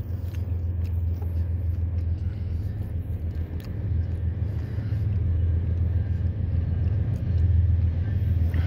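Approaching diesel locomotive's low, steady rumble, slowly growing louder as the train nears.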